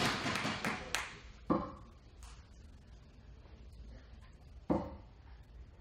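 Two steel-tip darts thudding into a bristle dartboard, one about a second and a half in and the next about three seconds later, each a sharp single hit with a brief ring.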